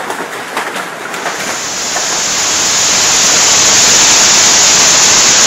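Hail falling, at first with scattered ticks of stones striking. About a second in it gives way to a dense, steady roar of very heavy hail that swells and then holds loud.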